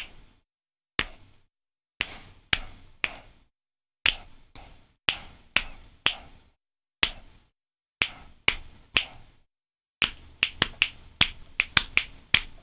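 Finger snaps and hand slaps on the thigh played together as a 3-against-2 polyrhythm: sharp separate clicks, spaced out at first, then a much quicker run of snaps and slaps from about ten seconds in.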